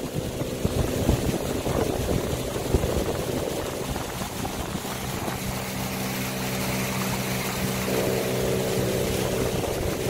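A small fishing boat's motor running steadily under way, a constant engine drone whose note becomes steadier and stronger about halfway through.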